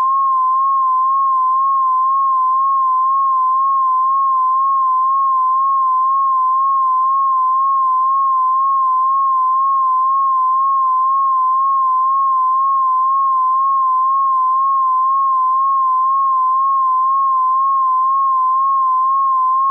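Electronic mosquito-tone sound effect: a single pure tone near 1 kHz, wavering up and down in pitch about twice a second, held at a steady level.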